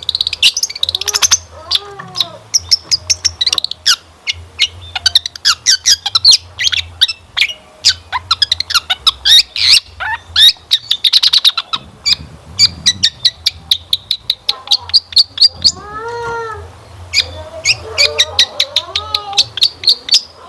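Long-tailed shrike (cendet) singing: a fast, loud run of sharp high chirps and trills, with lower arching whistled notes mixed in, about two seconds in and again near the end. It is the shrike's varied song, full of notes borrowed from other birds.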